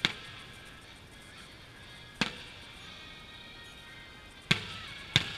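Aerial firework shells bursting: four sharp bangs, the first at the start, one a couple of seconds later, and two close together near the end, each followed by a short fading rumble.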